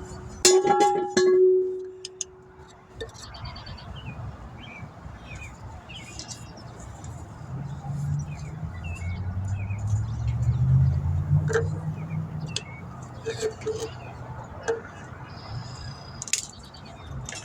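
Parking-lot ambience: a low rumble swells and fades in the middle, like a vehicle going by, over birds chirping and a few light metallic clinks. A pitched note rings out and fades at the very start.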